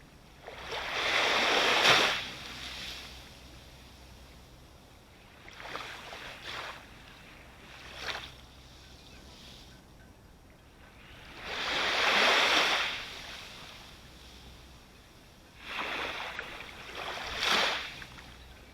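Ocean waves breaking and washing up the shore close by, in surges every few seconds: two big ones, about a second in and around twelve seconds in, with smaller washes between them.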